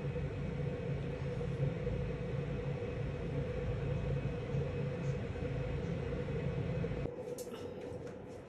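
A steady low mechanical hum with a constant tone in it, like a running fan or motor. It cuts out about seven seconds in and is followed by a few light clicks.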